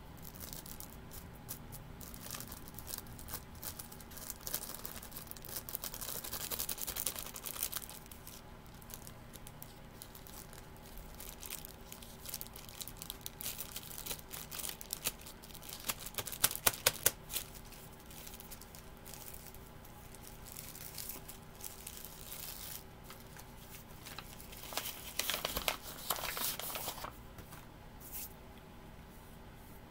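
Thin plastic bag crinkling and rustling as plaster casting powder is shaken out of it into a silicone bowl. There are sharper crackles a little past halfway and a longer bout of rustling near the end.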